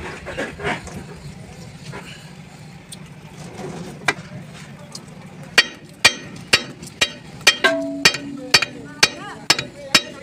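Hammer blows on steel, about two a second, starting about halfway through, some leaving a short metallic ring: metal being driven during a truck lift axle bush replacement.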